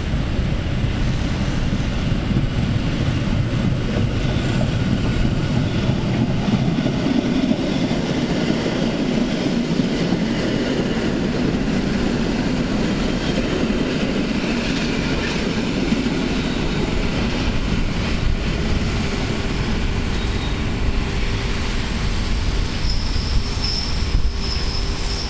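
EN57 electric multiple unit running past along the platform, its wheels and carriages rumbling steadily on the track. Near the end a high-pitched wheel squeal comes in.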